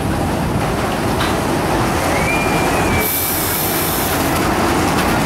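Kiddie roller coaster's train of caterpillar cars running along its steel track, a steady rumble of wheels on rail. About two seconds in, a high squeal is held for about a second, followed by a short hiss.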